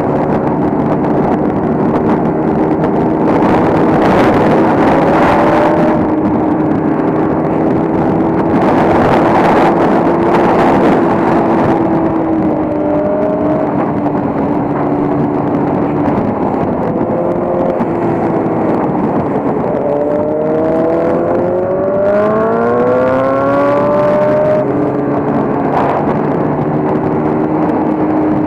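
Motorcycle engine running at highway speed with wind rushing past, the wind swelling twice in the first half. About two-thirds of the way through, the engine note climbs in rising sweeps as the bike accelerates.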